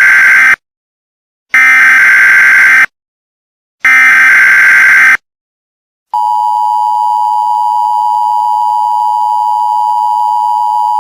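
Emergency Alert System header: three harsh, buzzing data bursts, each a little over a second long with about a second between them. About six seconds in comes the EAS attention signal, a steady two-tone tone that holds to the end, signalling that an emergency alert message follows.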